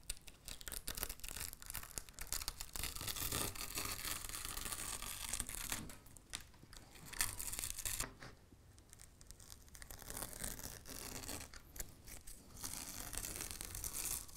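Red tape being peeled off the edges of a board of dried, glue-set model ballast: a crackling tearing sound in several long pulls with short pauses between.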